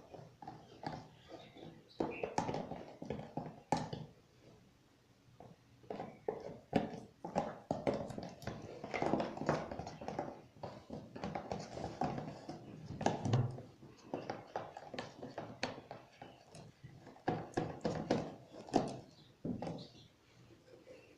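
A spoon stirring glue and borax water into slime, knocking and scraping against the container in many irregular clicks and taps.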